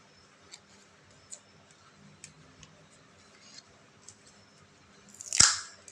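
Faint, scattered small clicks and taps from handling a phone and its new LCD screen during a repair, then one loud, sharp knock or snap about five and a half seconds in.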